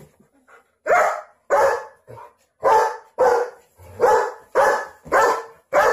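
German Shepherd barking, about eight loud barks in quick succession starting about a second in.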